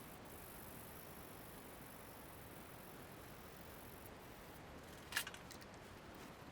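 Quiet room tone with a faint high hiss in the first few seconds, and a single sharp click about five seconds in, followed by a few faint ticks.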